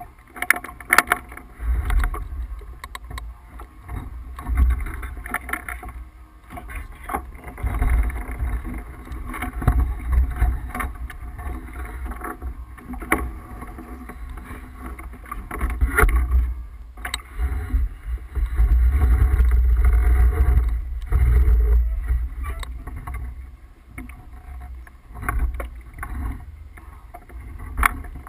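Wind buffeting the microphone in irregular gusts over water rushing along the hull of a Tripp 37 sailboat under way, with scattered sharp knocks.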